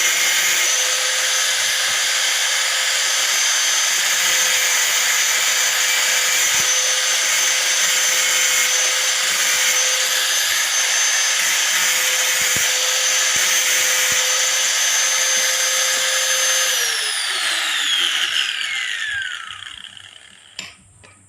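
Hand angle grinder running at a steady high whine while grinding a rusty steel nail, then switched off about seventeen seconds in, its whine falling in pitch as the disc spins down. A single click follows near the end.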